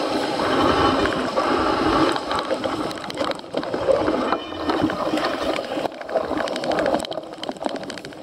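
Cyclocross bike ridden hard off-road: the tyres rumble over rough ground while the chain and frame rattle with a steady run of clicks and knocks.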